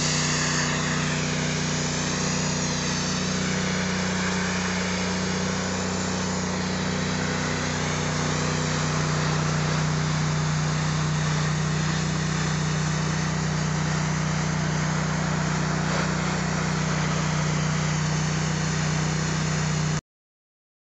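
Pressure washer running steadily: a constant low machine drone under the hiss of the high-pressure water spray striking a brick wall's cap. The sound cuts off abruptly just before the end.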